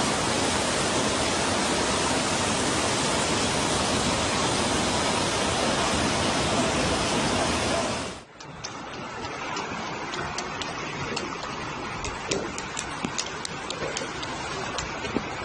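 Floodwater rushing in a steady, loud roar that cuts off suddenly about eight seconds in, giving way to a quieter rushing hiss scattered with small sharp clicks.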